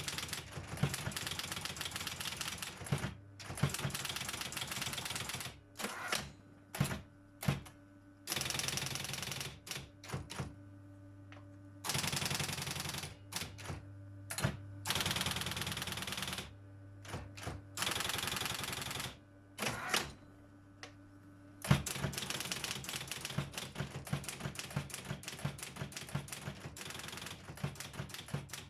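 Robotron 202 typewriter being typed on in fast runs of keystrokes, with short pauses and a few single strokes between the runs. The longest unbroken run comes near the end. A steady low hum shows in the pauses.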